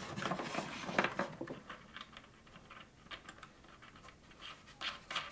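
Scattered light clicks and scratches of hands handling a pickup's output jack and washer at the tail end of an acoustic guitar, with a sharper click about a second in and a few more near the end.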